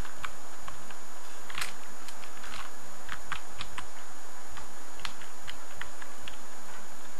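Typing on a computer keyboard: irregular keystroke clicks, a few per second, as a word is typed.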